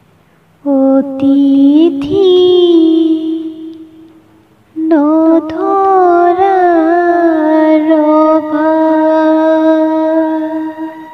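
Background music: a woman's voice singing two long drawn-out phrases, a short one and then a longer one that stops near the end.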